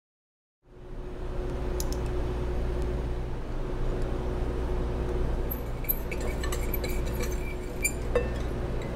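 Metal measuring cup and spoon clinking against a glass mixing bowl as cornstarch and seasoning are measured in, with a few taps early on and a cluster of light clinks in the second half, over a steady low hum.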